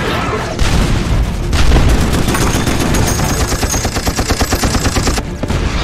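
Film battle sound effects of a warship in action: explosions with a deep rumble at first, then rapid automatic gunfire in a fast, even stream from about two seconds in that cuts off suddenly near the end.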